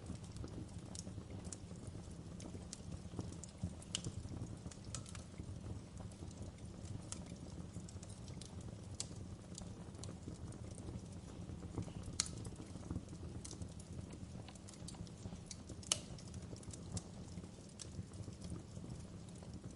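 Campfire burning: a steady low rumble of flames with irregular crackles and pops of burning wood, two sharper snaps about 12 and 16 seconds in.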